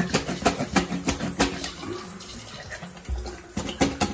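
Red rubber cup plunger pumped up and down in a water-filled shower floor drain, squelching and splashing about three strokes a second, with a short pause in the middle before the strokes resume. This plunger is too short to reach the bottom of the drain.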